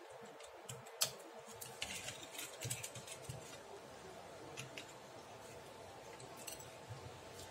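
Faint small clicks and scratching as a screwdriver and fingers work on the plastic circuit housing of a digital bathroom scale, with one sharper click about a second in and a scratchy patch a little after.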